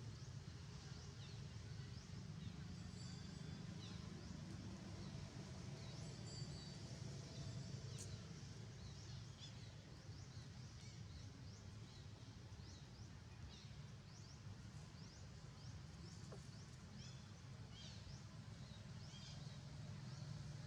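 Faint outdoor ambience: a steady low rumble with many short, high chirps scattered throughout.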